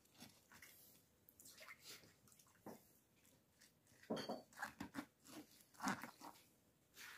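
Shredded cabbage and mixed vegetables crunching and squishing as a hand packs and presses them down into a glass jar. The noises are irregular and soft at first, with louder crunches from about halfway through.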